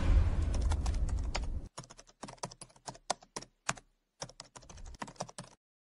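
The tail of the logo music fades out, then a quick, irregular run of key clicks like typing on a computer keyboard lasts about four seconds and stops abruptly: a typing sound effect accompanying on-screen text.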